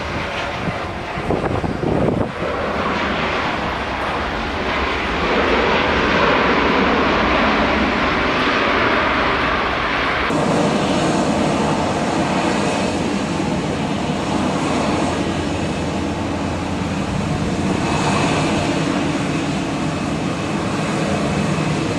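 Jet airliner engines running loud and steady: a Ryanair Boeing 737 rolling out on a wet runway after landing. About ten seconds in the sound changes abruptly to the engine noise of another jet airliner at a distance.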